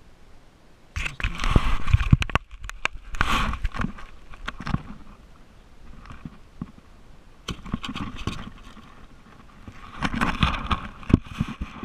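Handling noise from a sheepshead being worked in a mesh landing net aboard a kayak: rustling, scraping and sharp knocks. It comes in three bursts, a long one starting about a second in, a short one in the middle and another near the end.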